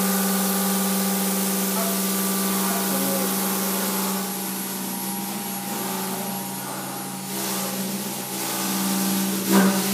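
CNC router spindle running at a steady pitch while its bit carves a styrofoam mold, giving a steady hum with a high hiss of cutting. A short louder sound comes near the end.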